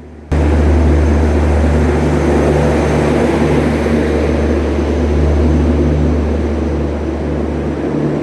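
Express train pulling in alongside the platform: a loud, steady drone with a deep hum, starting suddenly about a third of a second in.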